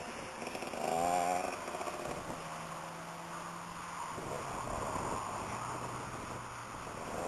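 Kawasaki KX 80 single-cylinder two-stroke motocross engine running at low revs with a brief rev about a second in. It then settles into a steady low drone that drops to a lower pitch about four seconds in.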